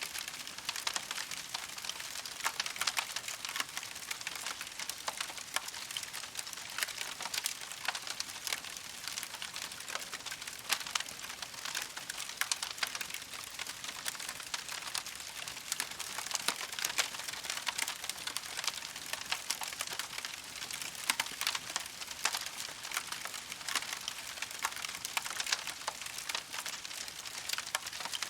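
Campfire burning with a steady, dense crackle of small pops and snaps over a soft hiss.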